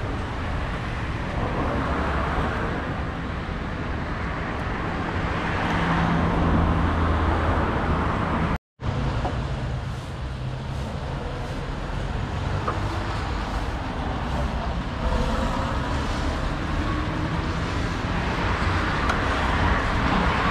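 Steady road traffic with car engines running, a continuous hum and hiss; the sound drops out completely for an instant about nine seconds in.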